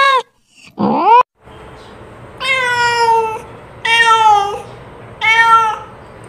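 A domestic cat meowing. There is a short rising call about a second in, then three clear meows about a second and a half apart.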